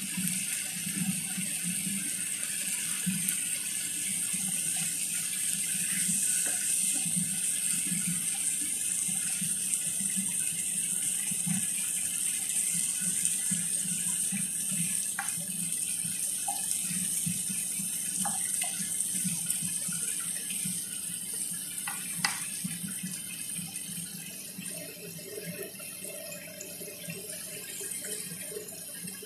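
Shrimp and onions sizzling and bubbling in sauce in a frying pan: a steady hiss with irregular small pops, easing a little near the end. A few light clicks of a wooden spoon in the pan about halfway through.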